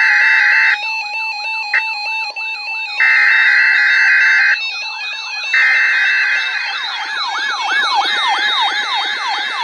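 Emergency alert broadcast: harsh, steady buzzing SAME header data bursts, three times, alternating with a fast, repeating siren-like swooping alert tone. From about seven seconds in, several alert tones overlap as the alerts stack.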